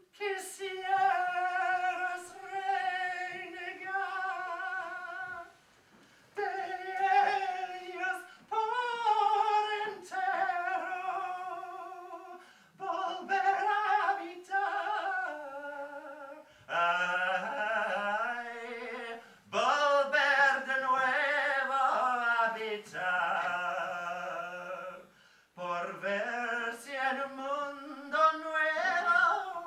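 A woman singing a slow song without accompaniment: long held notes with vibrato, in phrases broken by short pauses, the melody sinking lower in the middle stretch.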